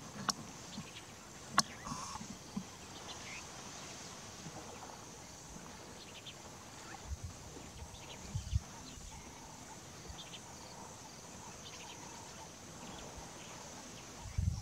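Bush ambience: a steady, high-pitched insect chorus with scattered short bird chirps. Two sharp clicks come in the first two seconds, and a few low thuds come a little past the middle.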